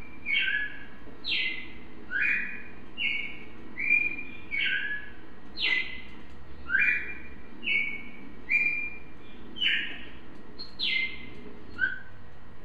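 A Brazilian cardinal (cardeal, a Paroaria cardinal) singing a string of short, clear whistled phrases, about one a second. Some phrases step between two pitches and others slide down from high to lower.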